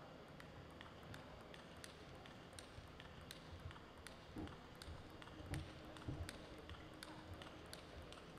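Quiet hall with faint, scattered sharp ticks of a table tennis ball bouncing. A few soft thumps come in the middle.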